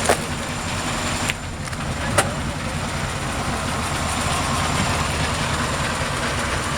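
A car engine idling steadily, with two sharp clicks, one just after the start and one about two seconds in.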